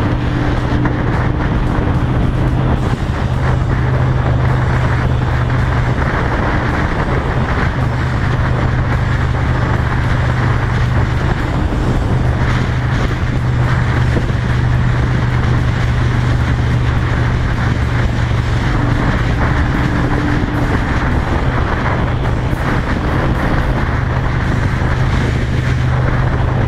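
Honda Shadow 750's V-twin engine running at a steady cruise through a new modified exhaust with a fishtail tip: a loud rumble at an even pitch, with no revving or gear changes.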